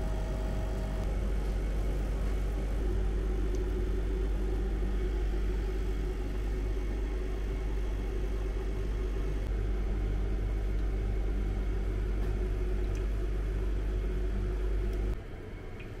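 Steady low machine hum and rumble that drops abruptly near the end.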